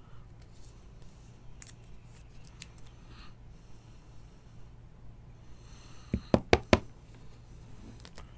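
Trading cards and a clear plastic top loader being handled, with soft clicks and rustles over a steady low hum. A little after six seconds in come four quick, sharp knocks.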